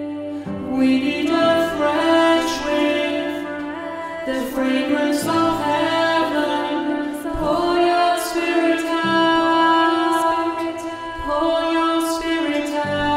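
Contemporary worship song sung over held accompanying chords.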